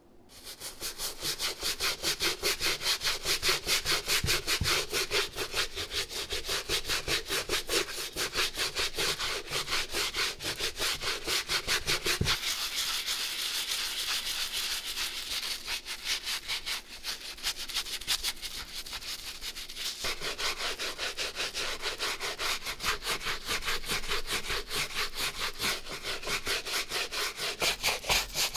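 Shoe-cleaning brush scrubbing a sneaker in quick, even back-and-forth strokes, about five or six a second, a little softer in the middle stretch.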